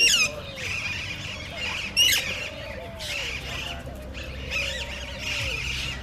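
Many birds chirping and calling together, with two loud, shrill squawks, one right at the start and another about two seconds later.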